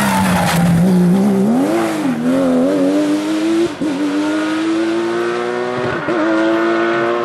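Porsche rally car engine at high revs under load: the pitch falls, climbs back and wavers, then holds and slowly rises, with short lifts off the throttle about four seconds in and again near six seconds.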